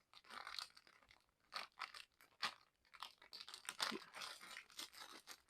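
Plastic snack packet crinkling and crackling in irregular rustles as it is handled and opened.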